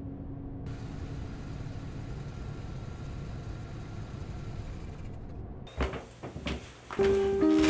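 A car running with a steady low rumble and a hiss over it. About six seconds in it gives way to a few sharp knocks, and music begins near the end.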